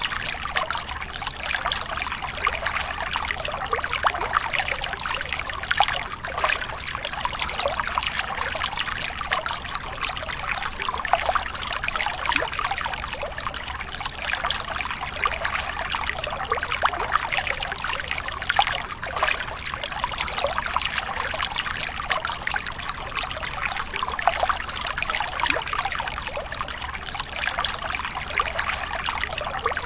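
A small stream of water trickling over rocks and splashing into a shallow pool: a steady, unbroken patter of many small splashes.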